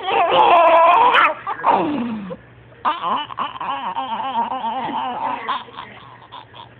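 Laughter in loud bursts, strongest in the first second and a half, then breaking off and starting again in choppier, fading fits.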